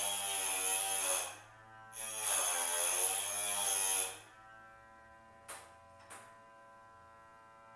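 Small electric piston-ring end-gap grinder whining in two spells as the ring end is held against its grinding wheel, the pitch sagging under load. It is taking a light cut to open the top ring's end gap. It stops about four seconds in, followed by two light clicks about half a second apart.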